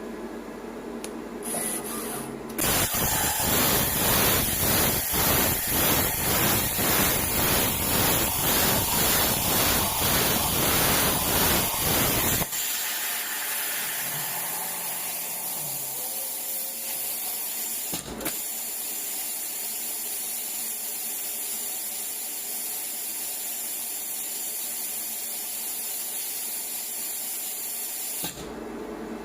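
A CNC metal-cutting machine running: a loud hiss that pulses evenly about one and a half times a second for some ten seconds, then drops to a quieter steady hiss with a single knock, and cuts off near the end. It is the faulty behaviour the owner is asking about.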